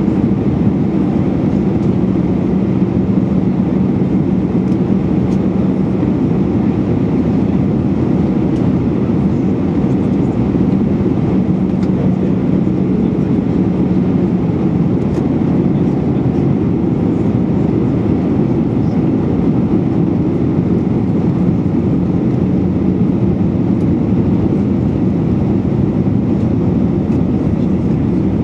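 Steady in-cabin noise of an Airbus A319-111 airliner on approach: air rushing past the fuselage mixed with its CFM56-5B5 turbofan engines running, under a steady low hum.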